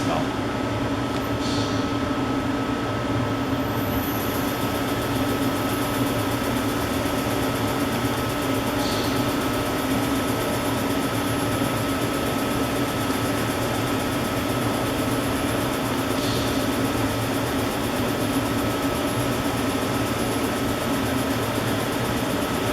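Leadwell T-6LSM CNC turning centre running: a steady machine hum with a constant high whine, and a faint brief hiss about every seven seconds.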